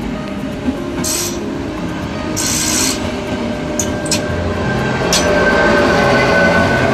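ČD CityElefant double-deck electric multiple unit running on the track, with rumble, short hisses and a few sharp wheel clicks. From about five seconds in it gets louder, with a whine that rises slightly.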